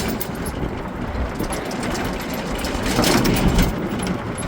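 Golf cart being driven along a nursery path: a steady rumble of running and rolling noise, a little louder about three seconds in.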